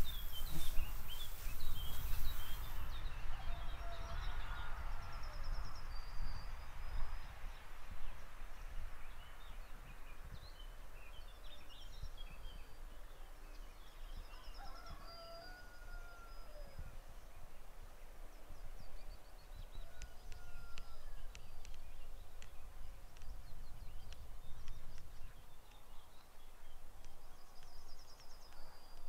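Small birds singing and chirping: scattered short high trills, chirps and a few whistles, over a low wind rumble on the microphone. A rustling hiss fills the first few seconds, then stops.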